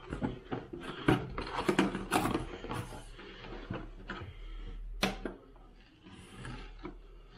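Clatter of handling a large, heavy alarm clock: a run of knocks and clicks, then a single sharp click about five seconds in, followed by quieter rustling.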